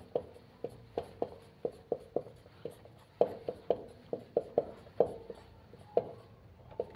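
Marker tip tapping and dragging on a whiteboard as letters and short bond lines are drawn. It makes an uneven series of short ticks, about two or three a second.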